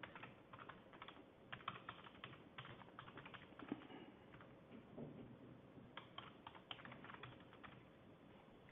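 Faint computer keyboard typing: a run of keystrokes, a short pause, then a second shorter run of keystrokes.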